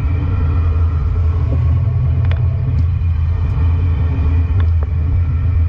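Steady low rumble of a motorhome driving, heard from under the chassis by the rear axle, with a steady drivetrain hum and a couple of faint clicks.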